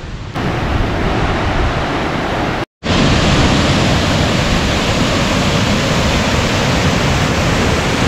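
Mountain stream cascading over boulders as a small waterfall, a steady rush of water. The sound cuts out briefly about a third of the way in and comes back louder.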